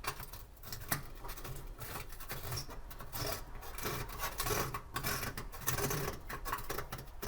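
Oven lamp cover being screwed back onto its threaded holder by hand: irregular scraping and rubbing with small clicks.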